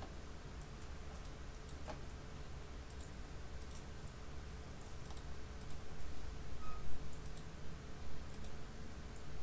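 Scattered light clicks of a computer mouse and keyboard being clicked and shift-clicked, about a dozen short ticks spread unevenly, over a steady low room hum.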